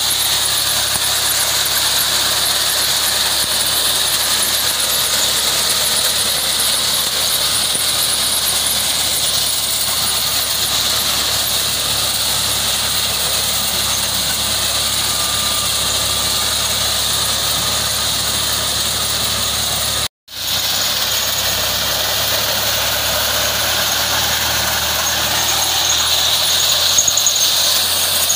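Fiat 480 three-cylinder diesel tractor running under load while its mounted reaper's cutter bar cuts standing fodder stalks. It makes a steady, loud, high-pitched mechanical din, with a split-second dropout about twenty seconds in.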